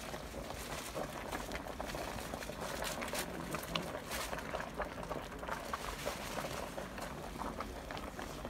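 Pot of chopped sugar beet boiling over a wood fire, a steady bubbling with many small pops throughout, as the beets cook for beet molasses.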